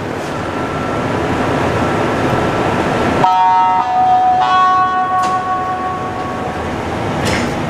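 Montreal Metro MR-73 subway train standing at a station: a steady rumble with faint steady tones, then about three seconds in the rumble drops off suddenly and steady electronic tones sound, stepping in pitch twice before fading, with a short click near the end.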